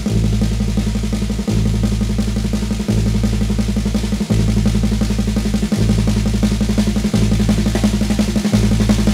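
A band playing: a drum kit beating a fast, busy pattern of snare and bass drum, over an electric bass holding long low notes that change about every one and a half seconds.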